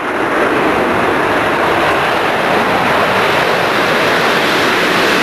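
Concorde's four Rolls-Royce Olympus turbojets at takeoff power with reheat, a loud, steady rush of jet noise as the airliner takes off.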